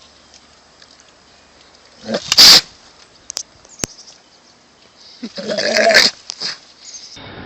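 An animal calling loudly twice: a short, noisy call about two seconds in, then a longer pitched call around five to six seconds in.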